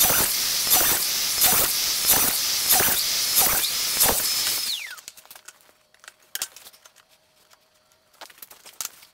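Festool TS 60 track saw cutting across a gang of stacked plywood ribs, loud with a surge about every 0.7 seconds. About four and a half seconds in the motor is switched off and its whine falls away as the blade spins down. A few light knocks follow as the stacked boards are shifted.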